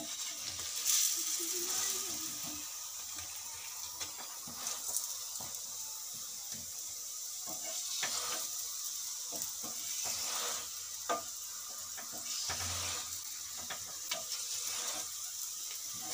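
Aloo paratha frying in oil on a hot tawa, sizzling steadily, with scattered scrapes and taps of a spatula pressing it down.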